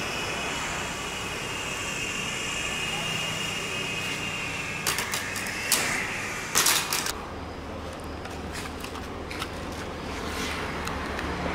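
Small electric motor and coaxial rotor blades of a homemade mini RC helicopter whirring with a steady high whine, then several sharp knocks about five to seven seconds in, after which the whine stops.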